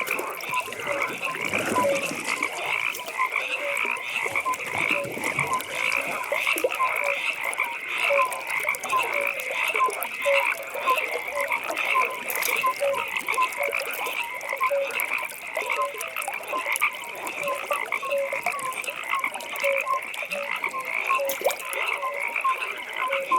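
Frogs calling in a pond chorus: a dense, continuous band of high calls, with a lower croak repeating steadily, roughly once or twice a second.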